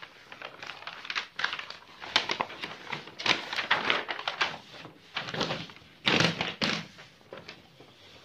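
Paper sheets rustling and crinkling as they are moved and shifted by hand, in irregular bursts with the loudest near the middle and again a little past six seconds in.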